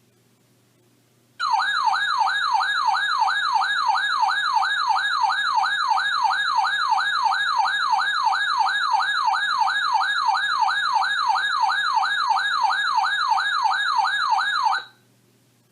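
Electronic warbling siren alarm from a weather alert radio, sweeping up and down about three times a second. It starts about a second and a half in and cuts off abruptly near the end, sounding for a newly received warning.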